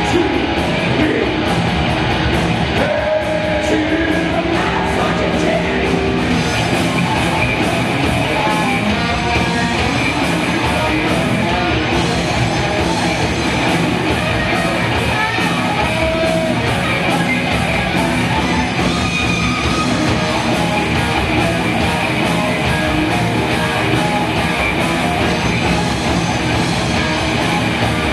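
Heavy metal band playing live, loud and dense, with electric guitars to the fore.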